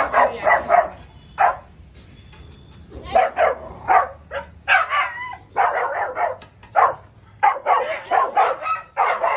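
A Rottweiler puppy barking repeatedly, short sharp barks in quick volleys, with a brief lull about two seconds in.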